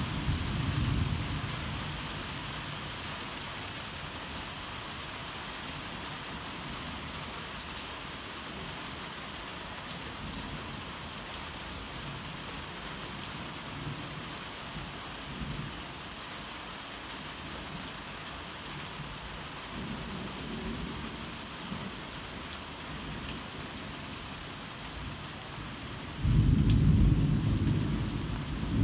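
Steady heavy rain with thunder: a low rumble fading in the first couple of seconds, faint distant rumbles midway, then a sudden loud clap of thunder rumbling on near the end.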